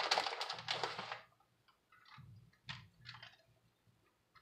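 A shaker bottle shaken over the pan for about a second, then a few faint clicks and crinkles as a plastic bag of shredded cheese is handled and the cheese is sprinkled by hand.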